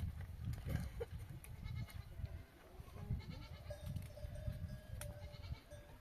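Goats bleating, with a long drawn-out call in the second half.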